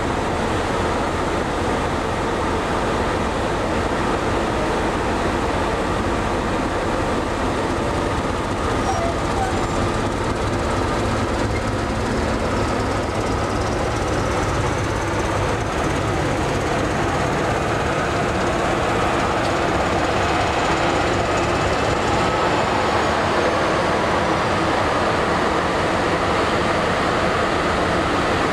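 Pair of British Rail class 73/1 electro-diesel locomotives running on their diesel engines, a steady even drone.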